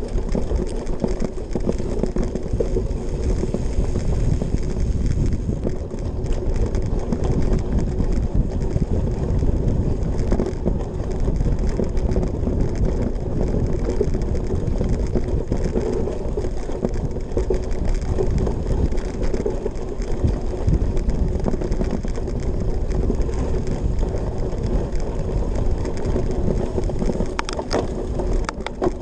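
Cyclocross bike ridden fast over rough grass and dirt, heard from a handlebar-mounted camera: a steady rumble and rattle from the knobby tyres and frame on the bumpy ground, with a few sharp clicks near the end.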